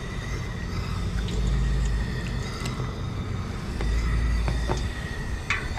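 Low rumble of wind buffeting the microphone, swelling and easing twice, with a few light metallic clicks from a wire skimmer knocking against the steel frying pot.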